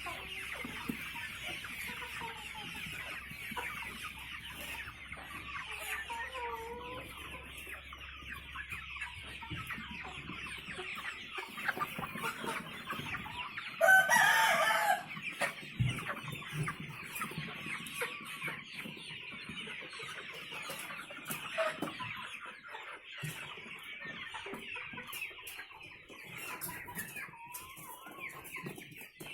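A large flock of chickens clucking and chattering without a break, with one loud call about 14 seconds in, typical of a crow. A low steady hum underneath stops about 11 seconds in.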